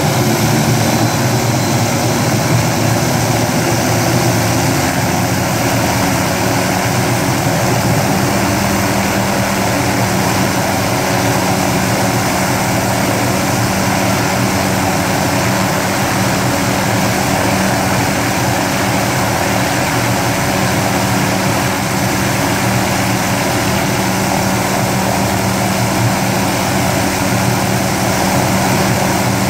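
MD 500-series helicopter running on the ground with its turbine engine and main rotor at idle, warming up before takeoff. It is loud and steady, with no change in pitch.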